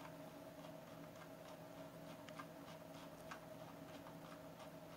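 Faint, irregular ticks of a computer mouse's scroll wheel and clicks as a panorama is zoomed, over a steady low hum.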